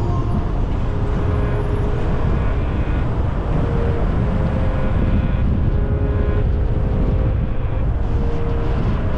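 Car driving, heard from the car itself: a steady, loud low rumble of road and engine noise.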